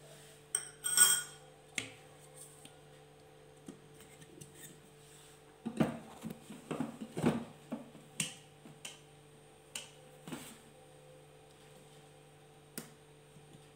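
Metal clinks and clatter of a stainless-steel mixer-grinder jar being handled and seated onto its base, its lid set on, with a single ringing clink about a second in and a run of knocks midway. The motor is not running.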